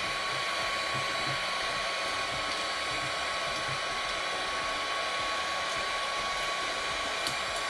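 Electric heat gun blowing steadily with a faint whine, heating the underside of a circuit board to melt the solder holding the chips. A small click near the end.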